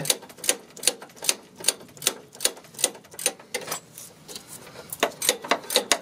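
Ratcheting wrench clicking in an even rhythm, about two to three clicks a second, as a tight nut on the front suspension is turned by hand, with a short lull about four seconds in.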